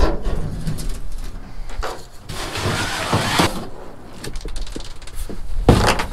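Pickup tailgate unlatched and dropped open with a clunk, then a hollow plastic kayak scraping for about a second as it is slid out of the truck bed, and a knock near the end as it is set down.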